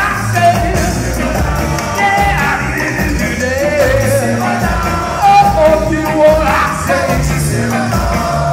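Live ska band playing, with a horn section of saxophones, trumpet and trombone, electric guitar and group singing over a steady bass line.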